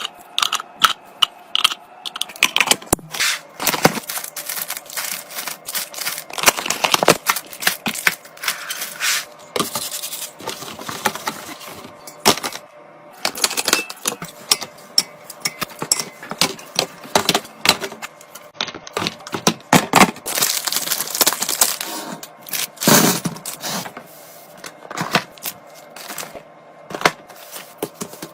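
Small items being handled and set down during restocking: rapid clicks and taps, several a second, with rustling and scraping between them.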